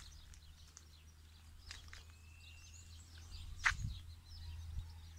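Faint birdsong of scattered high chirps and one short whistled note, over a steady low outdoor rumble. A single sharp click a little past halfway is the loudest sound.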